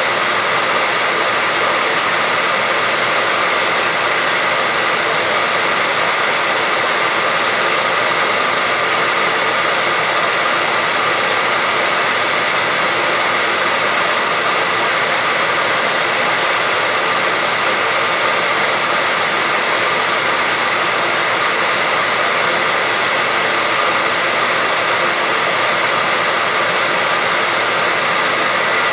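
Hair dryer running steadily, a constant airy whoosh with a faint high whine from its fan.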